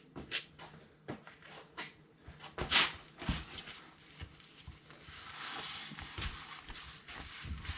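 Paper towel rustling and rubbing while wiping around a freshly tightened oil drain plug, mixed with scattered handling clicks and one sharp knock about three seconds in.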